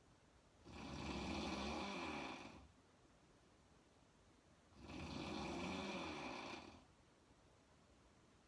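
A woman snoring in her sleep: two long snores, each about two seconds, roughly four seconds apart, with quiet breathing gaps between.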